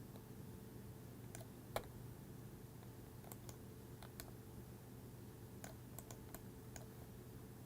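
Faint, scattered clicks of a computer mouse and keyboard being worked, about a dozen at irregular intervals, over a low steady hum.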